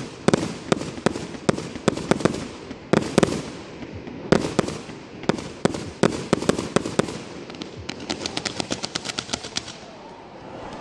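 Multi-shot firework launching red stars, each shot a sharp bang, two or three a second. Near the end comes a quicker run of lighter pops, about eight a second, and then the shots stop.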